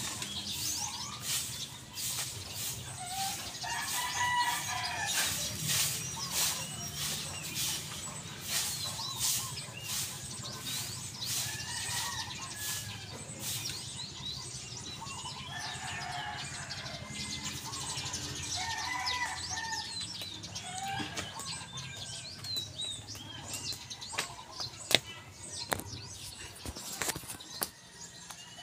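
Broom sweeping bare ground in a run of quick swishing strokes, dense through the first half and then thinning to a few strokes. Chickens cluck now and then in the background.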